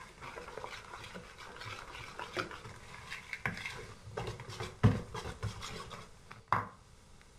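Wire whisk stirring chocolate cake batter in a plastic bowl, a quick scratchy, scraping rhythm of strokes. There are two sharper knocks in the second half, the louder one at about five seconds in.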